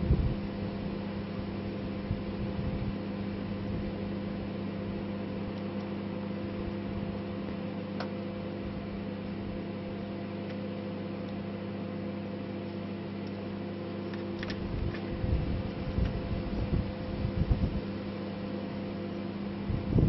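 Microwave oven running: a steady electric hum with several fixed tones, a single sharp click about eight seconds in, and a few low bumps near the end.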